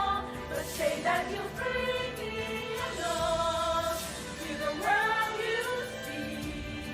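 A choir singing in harmony with long held notes.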